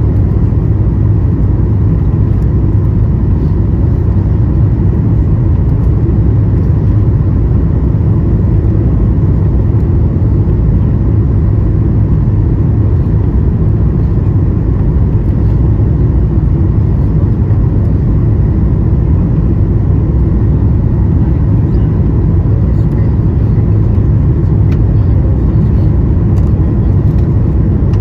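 Steady low rumble of engine and airflow noise inside the cabin of a Boeing 737-900ER airliner, unbroken and even in loudness, with a faint steady hum above it.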